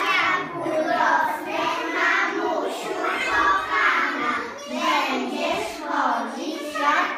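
A group of preschool children singing a song together, unaccompanied.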